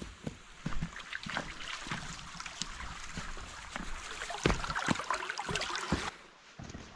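Footsteps crunching and rustling through dry fallen leaves, with a shallow rocky stream running. About six seconds in, the crunching stops and only the stream's trickle is left, quieter.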